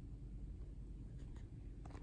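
Quiet indoor room tone with a steady low rumble, and a few faint soft clicks a little past halfway and again near the end.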